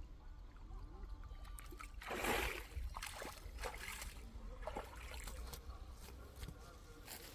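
Water splashing: a louder splash about two seconds in, then several shorter splashes and trickles.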